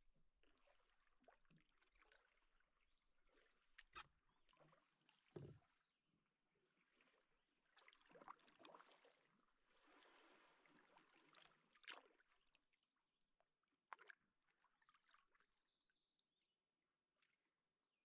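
Near silence: faint swishes of canoe paddle strokes in water, with a few soft knocks.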